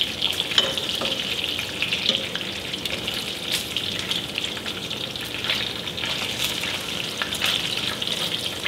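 Bacon frying in a skillet: a steady sizzle with scattered crackles and pops.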